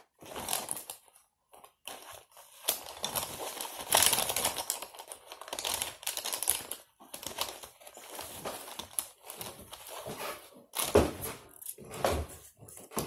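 Paper index cards being handled on a tabletop: irregular rustling and scraping, with a couple of sharper knocks near the end.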